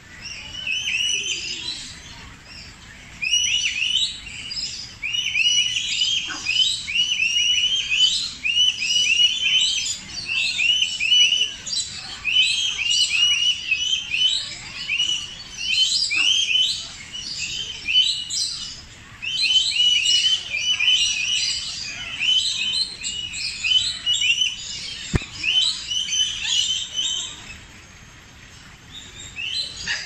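Many birds chirping, a dense chatter of short high notes that starts a few seconds in, dips briefly past the middle and thins out near the end.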